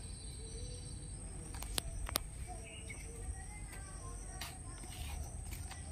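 Outdoor ambience: faint bird calls over a steady high insect buzz and a low wind rumble, with two sharp clicks a little under two seconds in.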